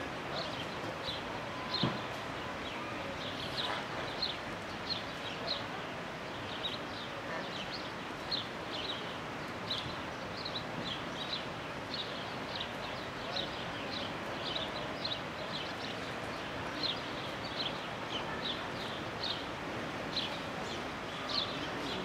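A bird chirping over and over in short, high, falling notes, about two a second, over a steady background hiss; a single knock sounds about two seconds in.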